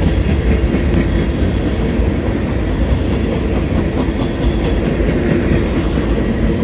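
Covered hopper cars of a freight train rolling past, a steady rumble with the wheels clacking over rail joints.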